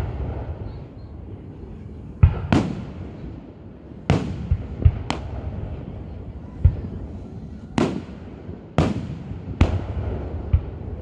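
Aerial fireworks shells launching and bursting: about ten deep booms and sharper cracks at uneven intervals, each fading away over a second or so.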